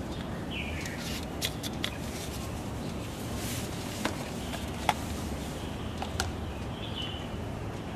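Scattered sharp clicks and taps of a plastic additive bottle and the engine's oil filler cap being handled, over a steady outdoor background, with a couple of short bird chirps.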